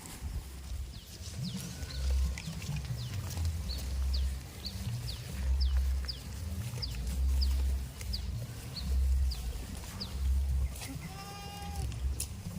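A goat bleats once near the end, a single high call lasting about a second. Before it comes a run of quick high chirps about twice a second over a low, pulsing rumble.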